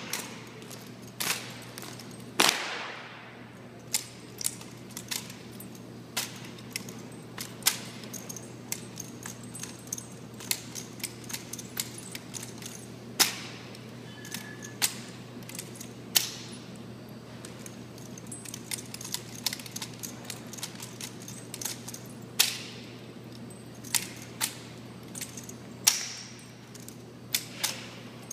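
Rifle drill: irregular sharp slaps, clicks and rattles of hands striking, spinning and catching rifles, with a few louder smacks that ring off the hard walls of a large hall.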